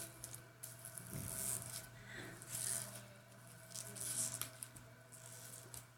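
White slime mixed with grated styrofoam being squeezed and stretched by hand, giving several short crackling, squishy bursts.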